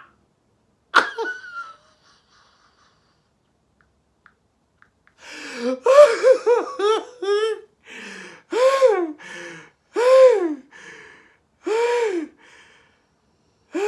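A man's exaggerated cartoon puppet voice sobbing. There is a short falling wail about a second in, then a pause, then a quick run of gulping sobs and three long wails that rise and fall in pitch.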